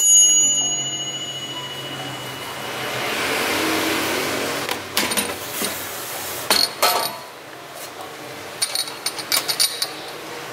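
Shanben air fryer's mechanical timer bell dings once at the start and rings out for a couple of seconds, while the unit's low running hum stops. Then the basket is slid out with a clatter, and the ceramic cups inside clink and knock a few times.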